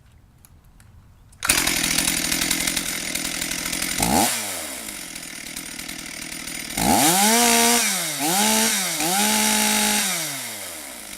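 Stihl MS440 chainsaw's two-stroke engine starting about a second and a half in and idling. It is blipped once, then revved up three times in quick succession, and settles back to idle near the end.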